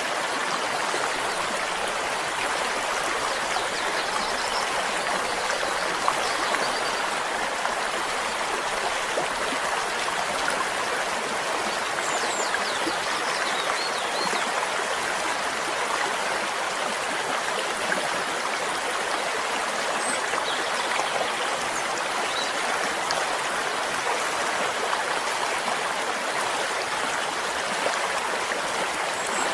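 Stream flowing steadily, an even babble of running water.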